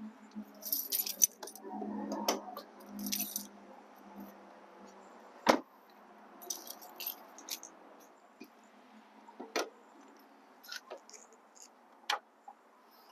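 A bunch of car keys jangling in hand in several short bursts, with one loud solid knock of the Accord's car door shutting about halfway through. A few lighter clicks follow near the end.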